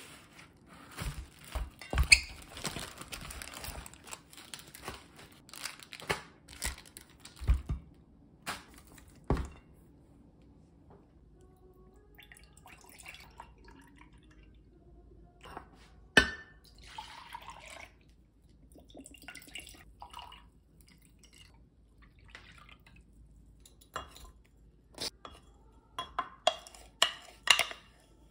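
Raw pork ribs slide out of a plastic bag into a stainless-steel bowl: plastic rustling with soft thuds and knocks for the first several seconds. Later a dark sauce is poured into a glass measuring jug, and near the end glass and utensils clink several times as brown sugar is added.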